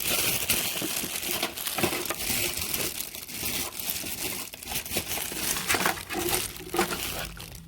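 Packaging crinkling and crackling continuously as hands pull an aquarium filter cartridge out of its wrapping.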